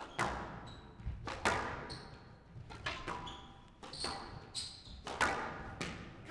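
Squash ball being struck by rackets and hitting the court walls during a fast rally: about ten sharp cracks at irregular intervals, each echoing in the court, with short high squeaks of shoes on the court floor between them.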